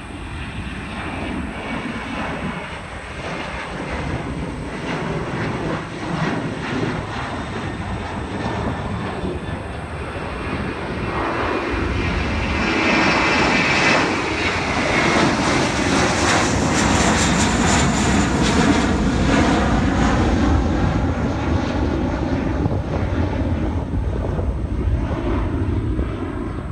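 Jet airliner engines at takeoff thrust as planes climb out after departure. The rumble grows steadily louder and is loudest about halfway through, with a sweeping, rippling sound as a jet passes overhead. After that it eases a little.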